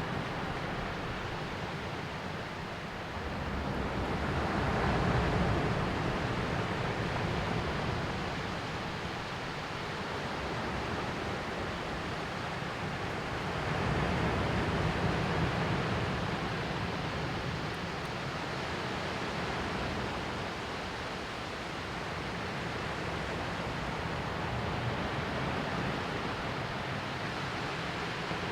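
Sea waves washing onto the shore in a steady rush, swelling louder about ten seconds apart.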